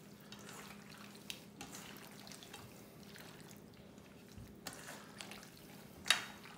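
Hands squishing raw venison chunks and diced bacon through a barbecue-sauce marinade in a stainless steel bowl: faint wet squelches and small clicks, with a sharper one about six seconds in.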